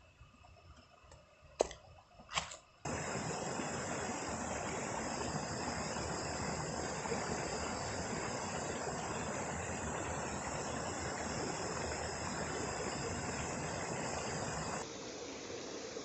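Quiet forest with faint steady insect calls and two sharp knocks. About three seconds in, the steady sound of water running over the rocks of a shallow stream cuts in and dominates; near the end it drops abruptly to a quieter level.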